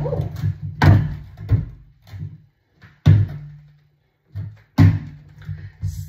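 Irregular knocks and thuds, about eight of them, as things are handled and set down on a stainless steel sink counter while washing-up liquid is put on a brush.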